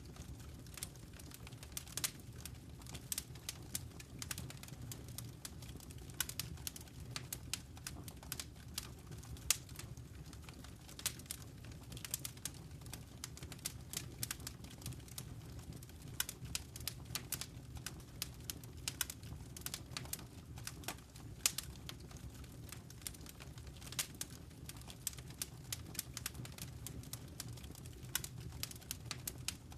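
Wood fire crackling, with irregular sharp pops and snaps, several a second, over a low steady rumble of burning.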